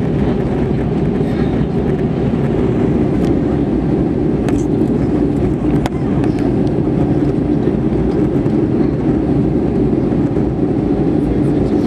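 Steady low drone of an Airbus A320-212 cabin in cruise, engine and airflow noise heard from a window seat. A single faint click about six seconds in.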